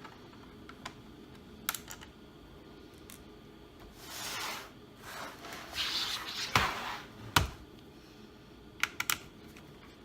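Screws being taken out of a laptop's plastic bottom case with a screwdriver: scattered small clicks, rubbing and scraping, with two sharp knocks in the middle and a quick few clicks near the end.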